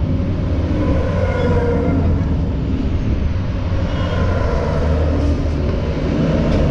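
Heavy multi-axle military trucks driving past in a column, their diesel engines rumbling steadily, with a noisy haze of tyre and engine sound.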